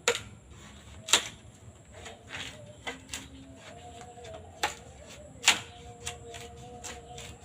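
Bamboo being split by hand with a blade: four loud, sharp strikes with lighter taps and knocks between.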